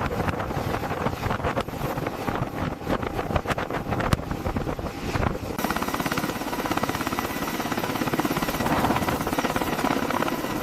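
Helicopter running for launch, with irregular clatter at first and a steady rapid rotor beat from about halfway.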